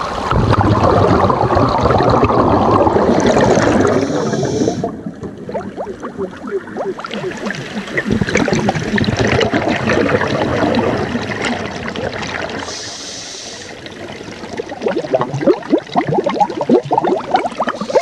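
Water splashing and bubbling, with gurgling, swelling and fading, and rapid bubbling near the end.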